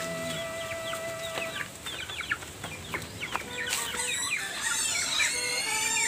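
Free-ranging native chickens and chicks calling: many short high peeps that drop in pitch, with clucking and one long held call, likely a rooster crow, through the first second and a half.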